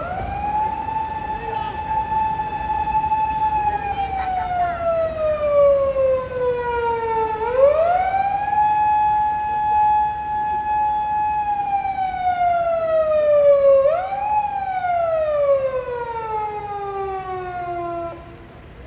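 Japanese unmarked police car's siren sounding a loud wail. It rises quickly to a held high tone, then falls slowly, twice in full, then once more with only a brief peak. It stops shortly before the end.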